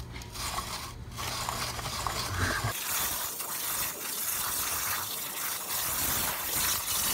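Light mechanical clicking from the cut-open weed wacker's two-stroke engine being turned over by its pull cord, over a low hum. About three seconds in, a steady hiss takes over as a 60,000 psi waterjet cuts through the trimmer's shaft tube.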